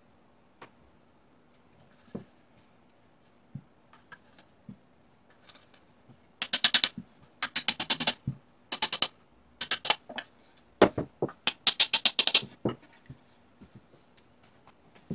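Wooden mallet tapping wooden pieces into a mortise joint of a wooden rocking-chair frame, in quick bursts of sharp knocks from about six seconds in to about twelve seconds. Before and after, only light clicks of wood being handled.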